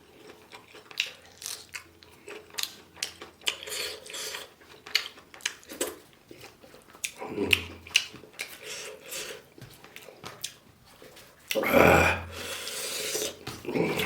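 Close-miked chewing and eating sounds: a steady run of short wet smacks and crunchy clicks, with a louder rush of noise near the end.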